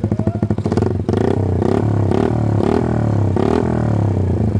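Small four-stroke single-cylinder engine of a 50cc Honda Dax-style minibike, running through a replica Akrapovič silencer with its baffle removed. It idles with a loud, open-pipe putter, then from about a second in is revved in quick repeated blips, the pitch climbing and falling roughly twice a second.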